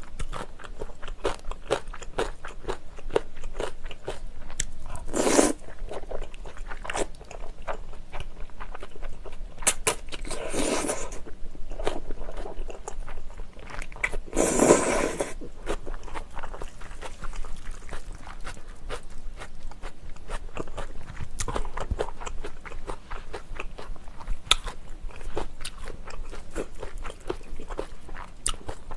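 Close-miked mouth sounds of a person eating jjajangmyeon (black bean sauce noodles): steady wet chewing with many small smacking clicks, broken by three louder noodle slurps in the first half.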